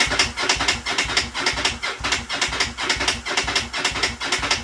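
Electric starter cranking a Yamaha V-Star 1100's V-twin engine, turning it over in a steady chug of about five beats a second without it catching. The engine is not firing, which the owner puts down to a lack of spark or fuel.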